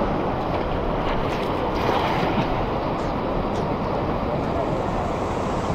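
Floodwater from a river in spate rushing and churning over a low weir, a steady, loud rush of water, with wind buffeting the microphone.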